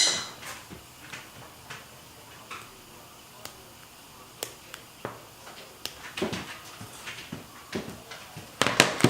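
Small plastic clicks and taps of a Samsung Galaxy Note 4 being handled as its back cover and battery are worked on, scattered irregularly, with a louder burst of handling noise near the end.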